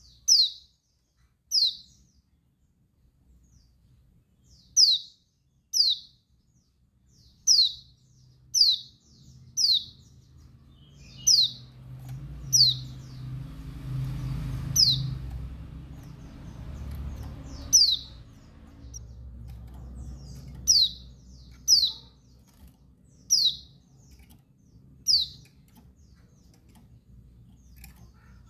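Female pleci dakun Bali (a white-eye) calling: a single short, sharp chirp sweeping downward in pitch, repeated every one to two seconds. This is the female's call to males. A faint low rumble rises and fades in the background around the middle.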